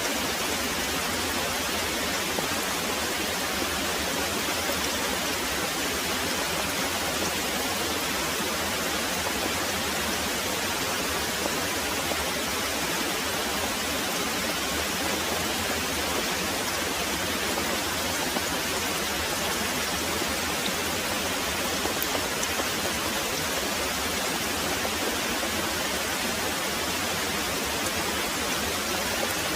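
Very heavy rain pouring steadily: a dense, even hiss with no let-up and no thunder audible.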